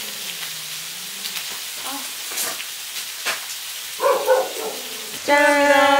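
Lamb ribs, green onion and onion sizzling on a hot cast-iron cauldron-lid griddle (sotttukkeong), a steady frying hiss with a few light clicks. Near the end a voice calls out a long held note over it.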